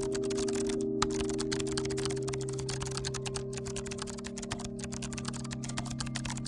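Rapid typing on a computer keyboard, a dense run of keystroke clicks with a brief pause about a second in, over background music of steady held tones.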